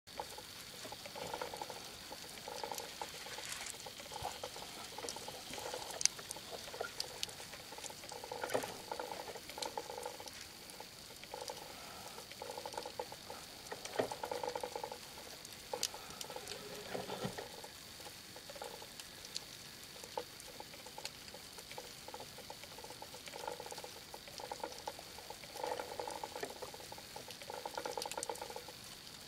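Muffled underwater sound picked up through a camera's waterproof housing while a spearfisher swims: recurring low swishing surges every second or two, with scattered sharp clicks and a faint steady high tone.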